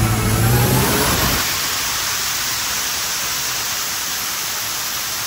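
Turbo-diesel drag pickup heard from inside its stripped cab, running hard: a strong engine note for the first second or so, then a loud, steady rushing noise.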